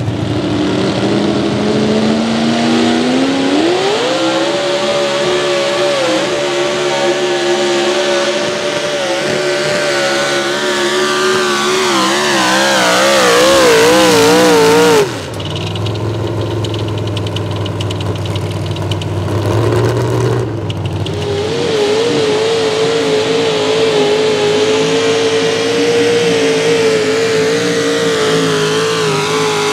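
Mini rod pulling tractor engines under full load at high rpm. One engine revs up over the first few seconds and holds high, then its pitch wavers and slips before it cuts off suddenly about halfway. After a few seconds of lower, steadier engine sound, a second pulling tractor runs at high rpm with a slight wobble in pitch.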